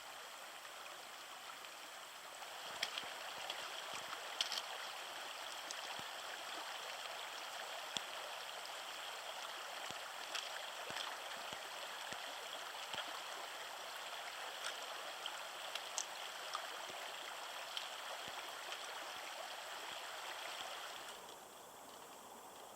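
Shallow creek water running over rocks, a steady rushing with scattered light ticks, that gets quieter suddenly near the end.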